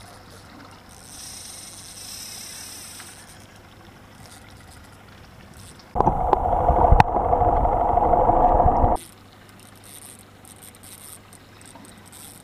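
Muffled underwater rushing and rumbling, much louder than the rest, starting abruptly about six seconds in and cutting off about three seconds later, with a couple of sharp clicks. Before and after it there is faint open-water ambience on a boat deck with a low steady hum.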